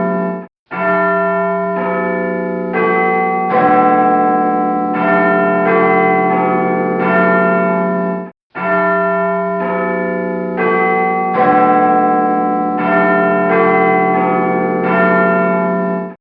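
Church bells ringing a peal, several bells of different pitch struck in turn with a new stroke under a second apart, each ringing on over the next. The sequence cuts off abruptly and restarts twice, about half a second in and about eight seconds in: a repeating ringtone loop.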